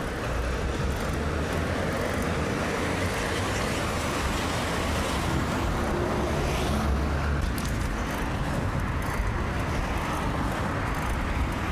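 Steady road traffic noise from cars on the road alongside, with a low rumble underneath that swells about seven seconds in.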